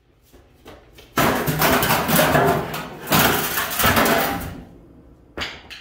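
A dented steel car fender clattering and scraping on a concrete floor for about three seconds, then a short clatter near the end.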